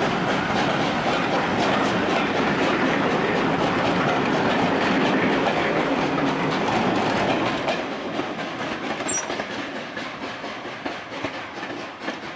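Vintage passenger coaches rolling past close by, their wheels clattering over rail joints and points in a steady clickety-clack. The sound fades from about eight seconds in as the last coach draws away.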